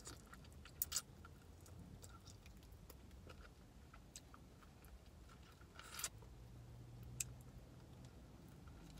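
Quiet chewing and mouth sounds of someone eating a fresh bone-in fried chicken wing: soft bites, lip smacks and sharp wet clicks scattered every second or so, the loudest about a second in and about six seconds in.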